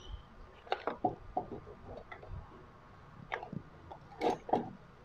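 Handling noise from a CRT TV's main circuit board being lifted and tilted on its wiring: scattered soft clicks and knocks, the loudest two close together near the end.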